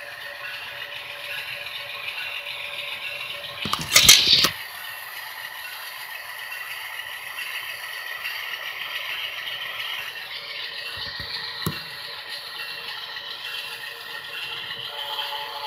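Model freight train running on sectional track, a steady rattle of cars and wheels. About four seconds in comes a loud clattering knock, and there is a sharp click later on.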